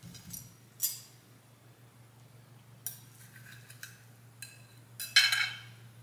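Fork and knife clinking and scraping on a plate while a cabbage roll is cut and eaten: several light, separate clinks, then a louder scrape about five seconds in. A faint steady low hum runs underneath.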